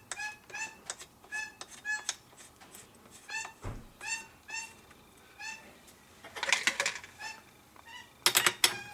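Rapid run of short, high-pitched animal calls, about two to three a second, with two brief clusters of sharp clicking around six and a half and eight and a half seconds in.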